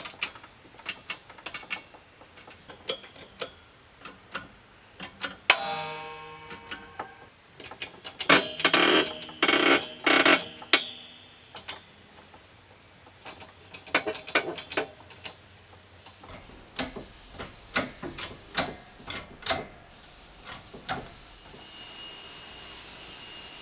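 Metal clicks, knocks and scraping as bearings and a gear are pressed back onto a mitre saw's armature shaft in a shop press, with a louder grinding stretch about eight to eleven seconds in. Later, sharp clicks of circlip pliers fitting a retaining clip onto the gear shaft.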